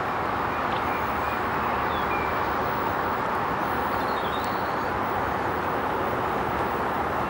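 Steady, even rushing noise with a few faint short chirps above it.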